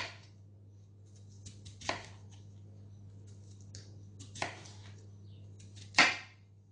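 A chef's knife slicing raw potatoes into thin rounds on a wooden cutting board: four sharp knocks of the blade meeting the board, roughly two seconds apart, with lighter cutting clicks between them. A low steady hum runs underneath.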